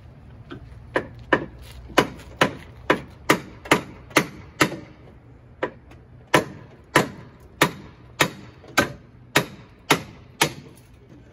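Hammer blows on the sheet-steel floor of a vintage Porsche 911 body shell: about eighteen sharp, ringing metal strikes at roughly two a second, with a short pause about five seconds in, knocking old floor metal loose.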